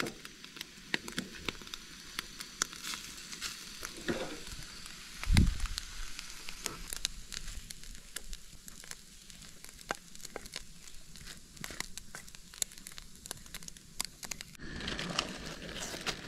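Scrambled eggs sizzling in a stainless steel skillet, with a spatula clicking and scraping against the pan as they are stirred and then scooped onto a paper plate. A dull thump comes about five seconds in, and near the end a plastic bag rustles.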